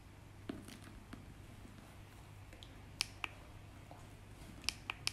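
Faint, sharp clicks from handling a stainless steel pot while it is tipped to pour blended spelt milk into a cloth-lined colander: a pair about three seconds in and two more near the end. The pour itself is barely heard.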